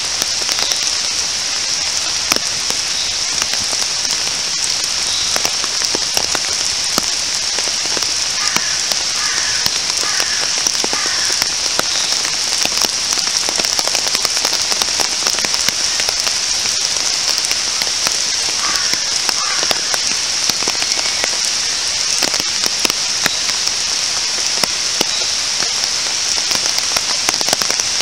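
Steady rain falling on a park's grass, tree leaves and a paved path: an even hiss dotted with the ticks of single drops.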